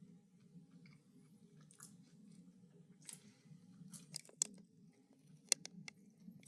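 A person chewing food, with soft wet mouth sounds and a few sharp clicks about four and five and a half seconds in.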